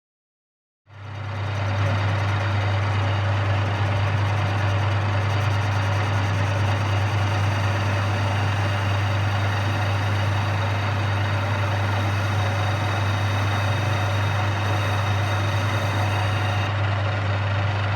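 A lathe's electric motor switches on about a second in and runs steadily with a strong low hum over a even mechanical hiss.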